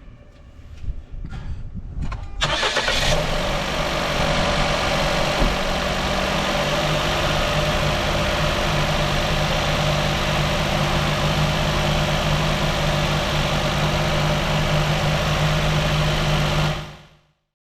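Suzuki Hustler's 660 cc three-cylinder turbo engine starting about two and a half seconds in and settling into a steady idle, which cuts off abruptly near the end.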